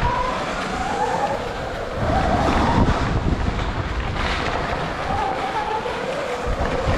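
Dirt bike ridden round a dirt track: a motor whine that rises and falls with speed, under heavy wind noise on the microphone.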